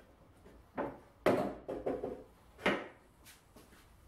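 Hinged plywood wing and swing-out support bracket of a homemade miter saw stand being folded out and set in place: about four hollow wooden clunks and knocks, the loudest a little over a second in.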